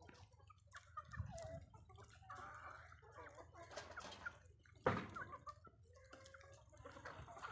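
A flock of free-range hens clucking in short, scattered calls, with one sharp knock about five seconds in.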